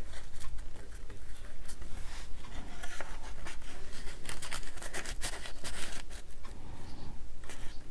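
Paper and craft materials being handled close to the microphone: rustling and scratching with many small clicks and taps.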